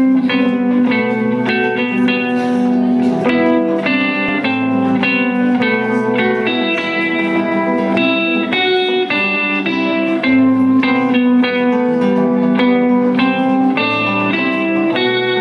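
Instrumental introduction of a song: guitar playing a quick run of plucked notes over a bass line.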